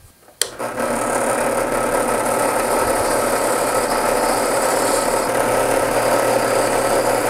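Drill press switched on with a click about half a second in, then running steadily with a larger-diameter sanding drum in the chuck, the drum grinding against the wooden lure blank to smooth out saw marks on the inside curves.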